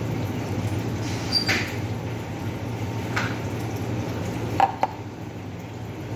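Steady low background hum with a few light clinks and knocks from a stainless steel milk pitcher and cup being handled after a latte-art pour; the loudest, a quick double knock, comes about four and a half seconds in.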